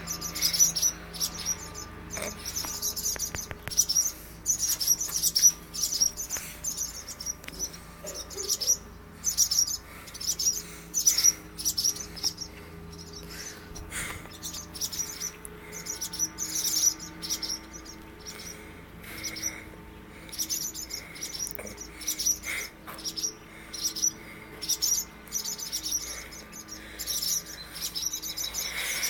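Birds chirping over and over in quick, high-pitched runs of short chirps: the calls of territorial birds whose nest has been taken down.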